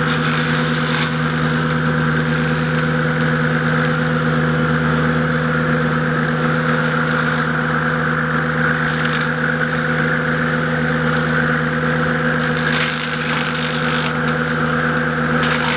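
Boom-mounted 48-inch rotary brush mower and its carrier machine's engine running steadily at full speed, a constant hum with a whine above it, with occasional crackles of brush being cut.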